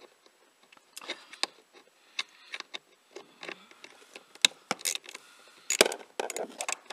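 Irregular small metallic clicks and ticks from a hand driver with a Torx bit being turned on the bolts that hold a car seat's plastic back panel. The loudest clicks come about four and a half and six seconds in.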